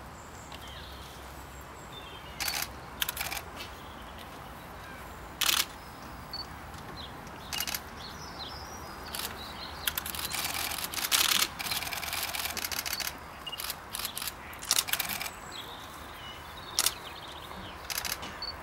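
Camera shutter clicking, sometimes as single shots and about halfway through in rapid bursts of continuous shooting.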